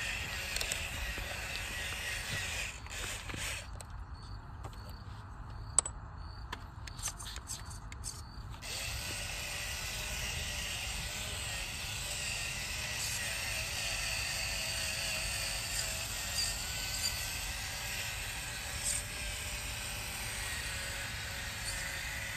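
Small electric motors and plastic gearboxes of radio-controlled model tractors whirring and grinding as they drive through mud, with a sharp click about six seconds in.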